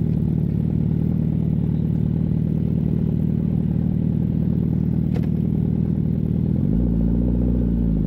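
Suzuki Hayabusa 1340 cc inline-four motorcycle engine running steadily through its twin exhausts, then revved up briefly about seven seconds in.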